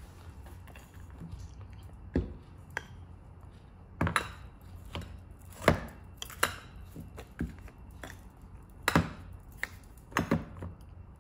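Glass storage jars with wooden lids being handled and set down on a wooden tray: a dozen or so irregular knocks and clinks, with the sharpest ones a little past the middle and again about nine seconds in.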